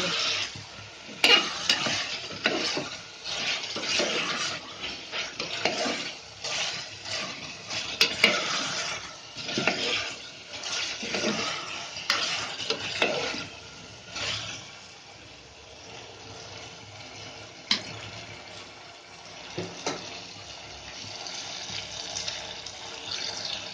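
A spoon stirring and scraping chicken pieces around an aluminium pressure cooker on high heat, with frying sizzle underneath. The stirring strokes stop about two-thirds of the way through, leaving a softer steady sizzle and an occasional knock.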